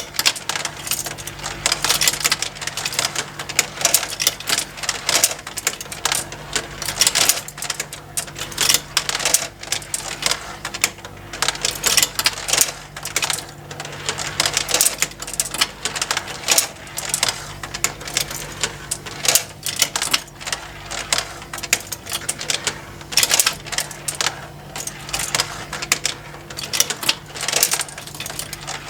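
Motorized plastic marble run: marbles clicking and clattering irregularly along plastic tracks and lifts, over the steady hum of the small motor driving the plastic conveyors that lift the marbles.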